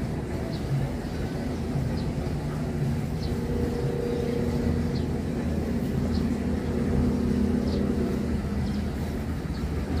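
A steady low engine rumble, with short high chirps about once a second.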